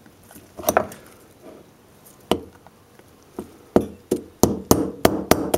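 Hammer tapping a wooden dowel to drive a seal retaining ring down into a motorcycle brake caliper's bore: about ten light taps, a few spaced out at first, then a quicker run of them in the last two seconds.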